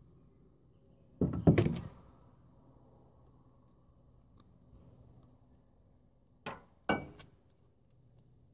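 Thumps and knocks: a loud cluster of thuds about a second in, then two or three sharp knocks near the end.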